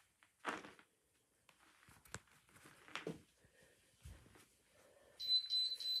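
A few faint knocks and thumps of movement, then about five seconds in a medication alarm box starts sounding a steady, high-pitched electronic alarm tone.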